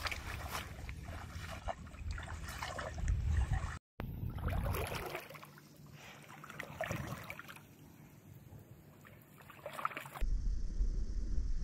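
Creek water sloshing and splashing in irregular bursts over a low rumble. The sound drops out for an instant about four seconds in, and near the end it changes to a steady low rumble.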